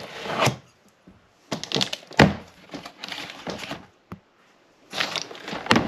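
Cardboard box and packaging being handled while a printer is unpacked: rustling and scraping in bursts, with a loud thump about two seconds in and a sharp knock near the end.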